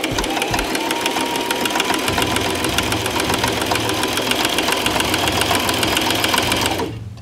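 Brother household sewing machine running steadily, stitching through denim with a rapid, even needle rhythm. It stops suddenly shortly before the end.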